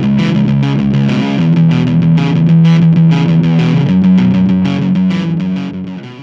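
Distorted electric guitar playing sustained chords, miked with a Shure SM57. The chord changes about a second and a half in and again about four seconds in, then dies away at the end.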